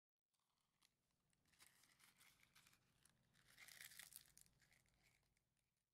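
Faint crackling and rustling that fades in, is loudest about four seconds in, then fades away, over a faint low hum.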